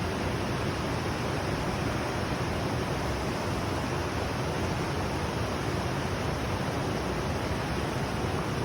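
Mountain river murmuring over rocks: a steady, even rush of flowing water.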